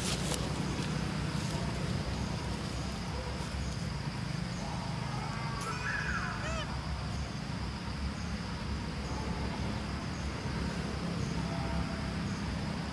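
Outdoor ambience: a steady high insect drone with faint regular ticking over a low rumble, with a few short, gliding animal calls about halfway through.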